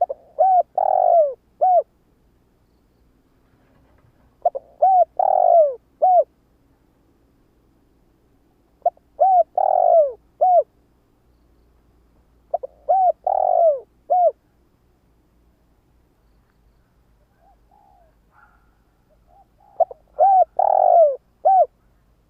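Decoy spotted dove cooing: five phrases, each of about four notes with a longer, louder coo in the middle, repeated every few seconds. It is the kind of call used to draw wild doves in.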